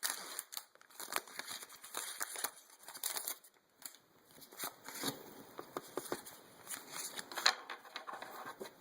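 Foil Pokémon booster pack wrapper crinkling and being torn open by hand, in irregular crackles and sharp snaps.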